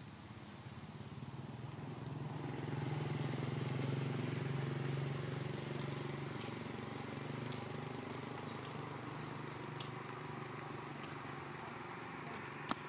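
Engine of a passing motor vehicle, a low hum that swells over about two seconds to its loudest around four seconds in and then slowly fades. A single sharp click near the end.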